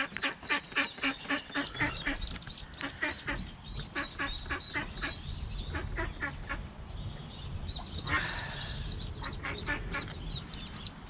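Mother duck quacking over and over, about three calls a second, calling her ducklings down, with the ducklings' short high peeps over the calls.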